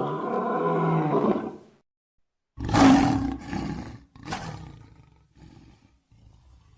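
Lion roaring: a drawn-out pitched roar lasting about a second and a half, then a gap of dead silence, then a louder roar about two and a half seconds in. A second, shorter burst follows, and the calls trail off into faint low grunts. It is cut together as a sound effect, with digital silence between the calls.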